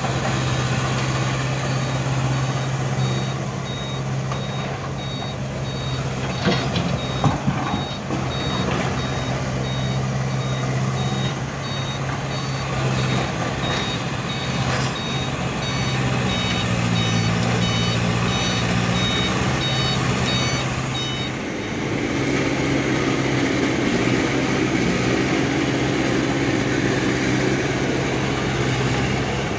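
Excavator's diesel engine running steadily while its travel alarm beeps over and over; a few sharp knocks come about a quarter of the way in. The beeping stops about two-thirds of the way through and the engine note changes.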